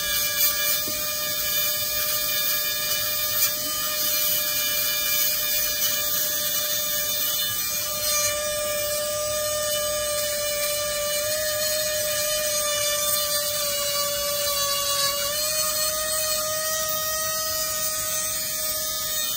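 Handheld electric micro-drilling pen running steadily with a whine, its needle bit grinding through the layers of a phone's CPU chip for recovery. The pitch sags slightly, then steps back up about fifteen seconds in.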